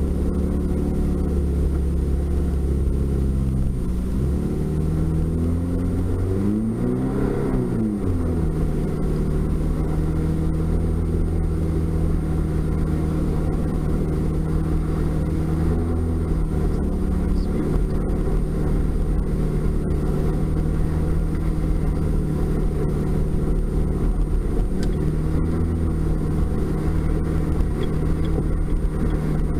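Toyota Tacoma pickup's engine running steadily under way, heard from inside the cab. About seven seconds in the engine revs up and drops back down.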